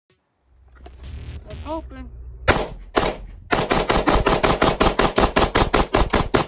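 Colt 602-style M16 rifle firing: two single shots about half a second apart, then a rapid string of shots, several a second, lasting about three and a half seconds.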